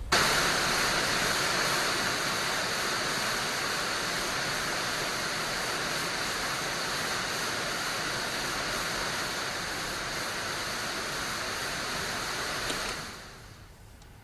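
A steady rushing noise that starts abruptly, holds even, and fades out near the end.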